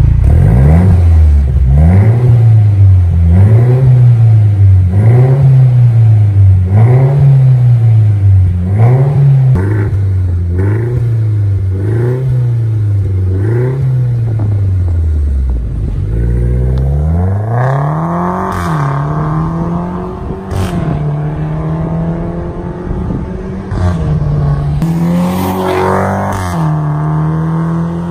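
A 2019 Mercedes C300's turbocharged 2.0-litre four-cylinder engine, heard through a de-catted Armytrix valvetronic exhaust with the valves open. It is revved in about ten quick blips, roughly one every second and a half. In the second half come longer revs held at higher engine speed, with a few sharp pops.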